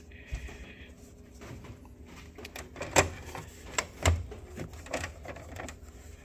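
Plastic clicks and knocks from an open automatic paper towel dispenser as a paper towel roll is handled and fitted into its holder, after a short rustling hiss at the start. The sharpest click comes about halfway through, with a few lighter knocks soon after.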